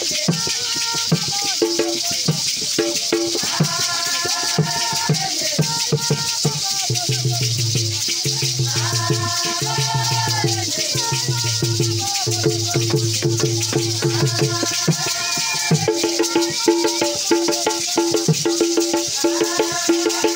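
A church song: voices singing together over hand-drum beats and the constant hiss of shaken rattles.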